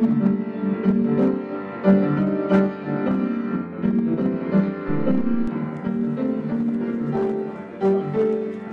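Piano playing a melody over chords, notes struck one after another in a steady flow.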